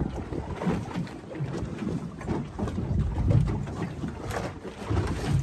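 Wind buffeting the microphone aboard a small boat on open water, coming in uneven gusts.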